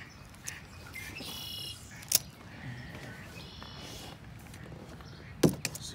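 Two short bird calls about two seconds apart, with a click between them and a sharp knock near the end, a knock on the canoe.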